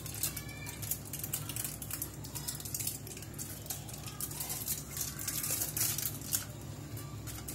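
Aluminium foil crinkling and rustling in many short crackles as hands peel it back and fold it, over a steady low hum.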